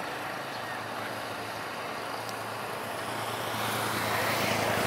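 An engine running steadily with a low hum, growing louder near the end.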